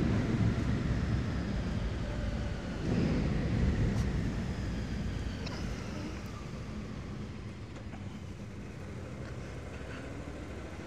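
Suzuki Intruder VL1500 motorcycle's V-twin engine running in second gear at low speed, louder at first and gradually quieter.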